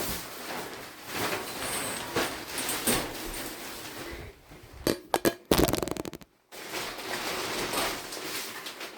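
Shower curtain rustling and being handled as it is tucked into the bathtub, with a few sharp knocks about five seconds in. The sound cuts out briefly about six seconds in.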